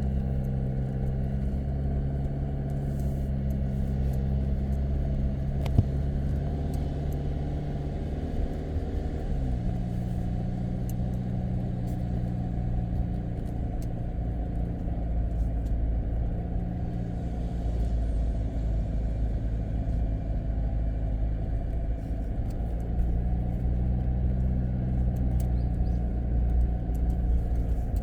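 Jeep Wrangler Rubicon's engine running steadily as it drives on beach sand, its pitch stepping down about a third of the way through. One sharp click is heard near six seconds in.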